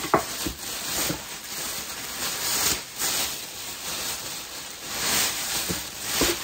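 Thin plastic packaging bag crinkling and rustling as hands pull at it inside a cardboard box, with a few sharp clicks in the first second.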